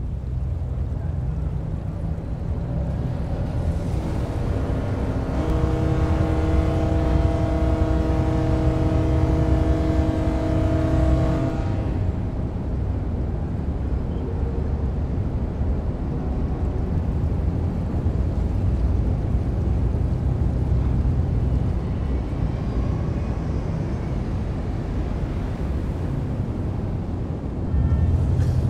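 Sound-designed city ambience built from effects only: a steady low rumble of traffic and vehicles. A long, steady pitched tone with several overtones sits over it from about four seconds in and stops at about twelve seconds.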